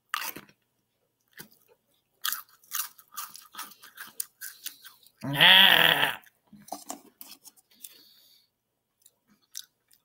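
Someone biting and chewing Lay's Stacks potato crisps, with dry crunches several a second. About five seconds in, a loud vocal sound from the eater, under a second long, breaks in, and the chewing then goes on more faintly and dies away.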